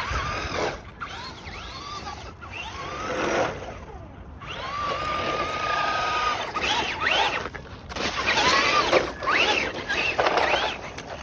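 RC truck's electric motor whining, its pitch sweeping up and down in quick bursts as the throttle is worked, with the tyres churning through snow. In the middle the whine holds at one steady pitch for about two seconds.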